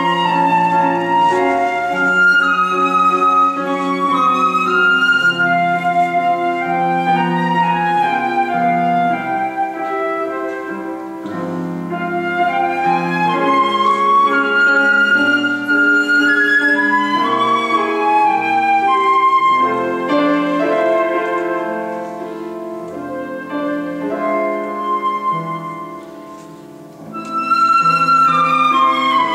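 Flute playing a classical melody over grand piano accompaniment. The music softens briefly about three-quarters of the way through, then comes back in loud.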